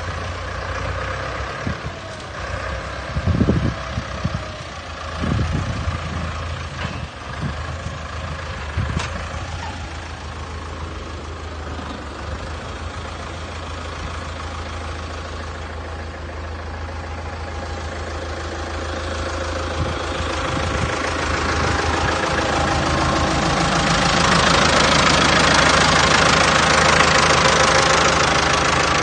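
Heavy earth-moving machine's engine running steadily, with a few low thumps a few seconds in. It grows louder over the last third.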